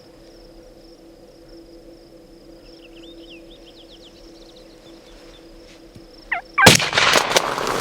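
A wild turkey gobbles once, short and loud, about six seconds in. Moments later a 20-gauge shotgun goes off with a sudden, very loud blast, followed by a second of loud noise as the shot echoes.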